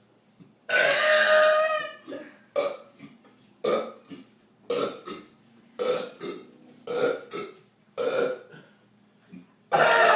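People burping on purpose in a burping contest: one long, loud burp about a second in, then a run of short burps about a second apart, and another long, loud burp starting near the end.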